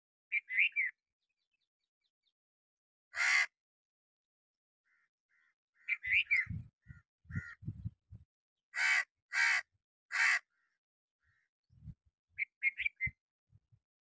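A crow perched in a tree cawing: harsh caws broken by gaps, with three loud caws in quick succession past the middle and shorter, clipped calls at the start and near the end.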